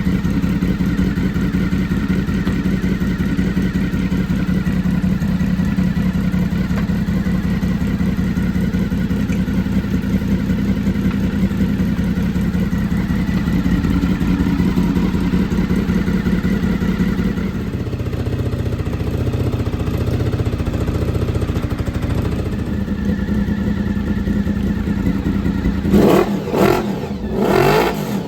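Honda VFR motorcycle's V4 engine idling steadily, its note dropping lower for a few seconds past the middle, then revved several times in quick succession near the end.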